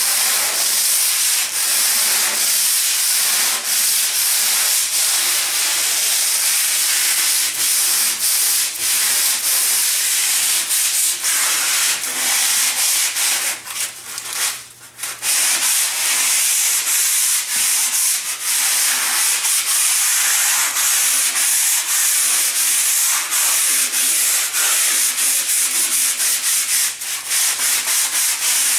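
120-grit sandpaper scrubbing over a dried textured DuraTex coating on a speaker cabinet, a loud steady rasping hiss broken by brief stops and one pause of about two seconds halfway through. It is knocking the rough peaks off the first coat before the final coat.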